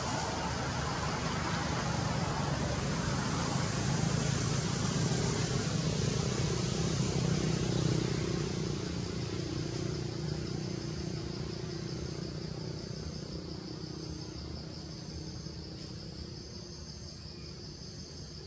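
A motor vehicle's engine rumbling, growing louder toward the middle and then slowly fading as it passes. A regular high-pitched insect chirping joins in the second half.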